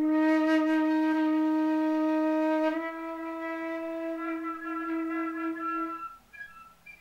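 Concert flute holding two long low notes, the second a touch higher and softer than the first, closing a slow lament. The last note stops about six seconds in.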